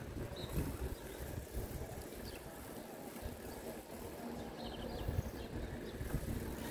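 Wind buffeting the microphone of a camera carried on a moving bicycle, over street ambience. A road vehicle's engine hum comes up near the end.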